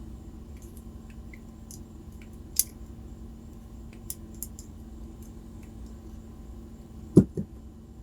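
Light, scattered clicks and taps of small lock pins and tools being handled on a bench during the disassembly of a padlock, with one louder knock about seven seconds in, over a steady low hum.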